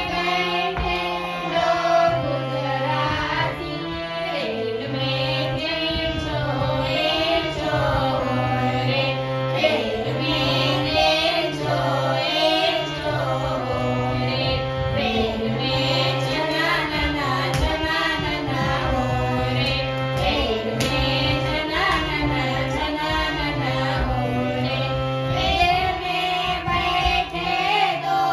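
Music: a sung children's action song over a backing with a steady, repeating bass line.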